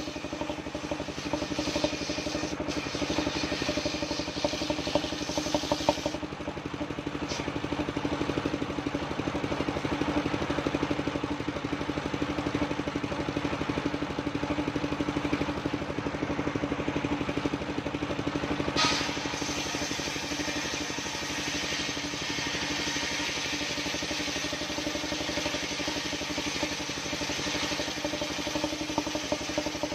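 Engine of a mobile circular sawmill running steadily. A high hiss over it falls away about six seconds in and returns after a sharp short sound near two-thirds of the way through.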